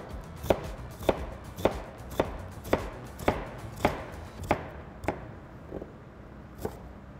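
Chef's knife dicing a yellow onion on a plastic cutting board: sharp, even knife strikes on the board about twice a second, thinning out after about five seconds.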